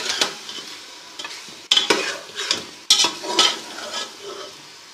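Beef and spices frying in hot ghee in a pot, sizzling while a utensil stirs it, with several sharp scrapes against the pot about a second apart.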